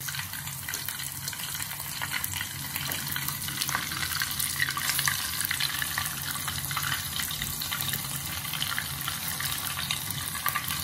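Coral mushroom, lightly dusted in rice flour, deep-frying in hot oil in a small pot: a steady, dense crackling sizzle.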